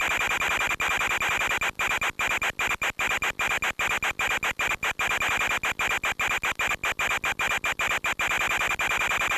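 Steady hiss and static from an FPV radio video link's audio channel, with a thin high whine running through it. Many brief dropouts break it up through the middle seconds.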